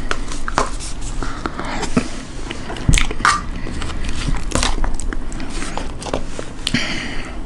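A person eating close to the microphone: irregular biting and chewing clicks throughout.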